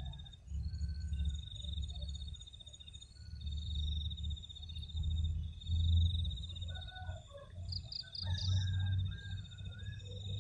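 Insects, cricket-like, trilling in repeated high pulsed phrases of about a second each, with a few short lower animal calls in the second half. A low rumble rises and falls underneath.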